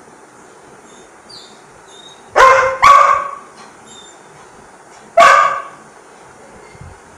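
Black Labrador barking: two quick barks, then a single bark about two seconds later. The barks are a dog asking for food.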